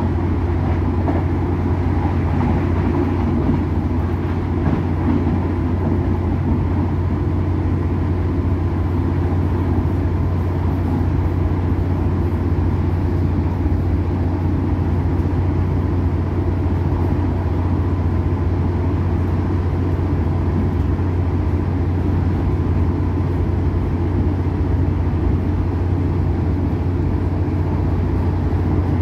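Irish Rail Class 2800 diesel railcar running at steady speed, heard from inside: a constant low drone and rumble that holds even throughout.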